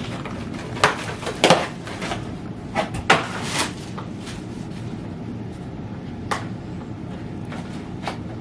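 Irregular knocks, clicks and short rustles of an e-bike's packaging and parts being handled during unboxing, busiest in the first few seconds and sparser after.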